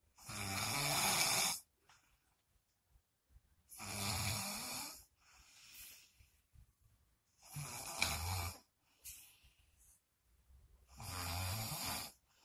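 A sleeping person snoring: four loud snores about every three and a half to four seconds, with quieter breaths out between them.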